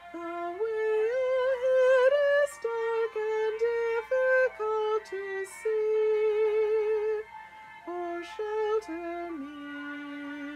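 A woman singing a slow, prayerful hymn melody solo with no accompaniment, holding notes with a slight vibrato and breaking briefly between phrases.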